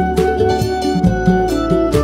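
Instrumental background music with quick, short notes over a moving bass line.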